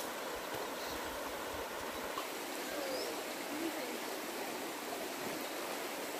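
Small river's water flowing, a steady even rush.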